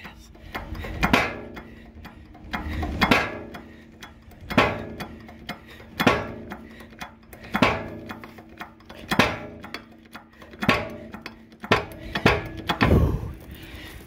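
A 20-ton hydraulic bottle jack being pumped by hand to press out a skid steer loader arm bushing: a sharp metallic click with a short ring on each stroke, about one every second and a half. Near the end there is a heavier, lower thump.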